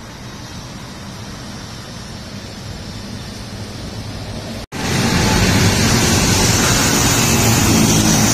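Steady wash of road traffic on a busy city avenue. About halfway through it cuts suddenly to a louder stretch of traffic with a low engine hum.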